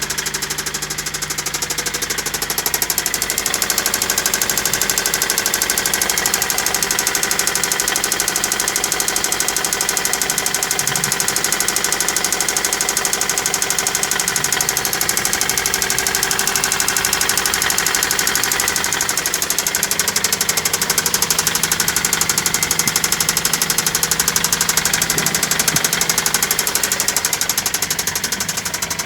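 Toyota Celica's replacement JDM engine running with a fast, steady, heavy knock. The owner doubts it is just carbon buildup on top of a cylinder and takes it for a bad engine knock that means the engine needs replacing.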